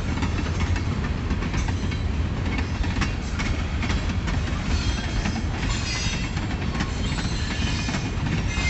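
Freight cars of a passing train rolling by: a steady low rumble with wheels clicking over the rail joints. Faint high tones join in about halfway through.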